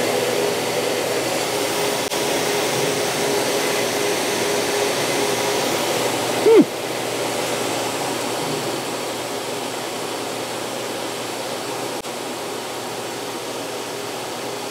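Steady rushing, blower-like noise from the CNC router's equipment running while its drag knife cuts cardboard, spindle off, with a faint steady tone underneath. About six and a half seconds in there is a short, loud sweep in pitch, after which the noise is slightly lower.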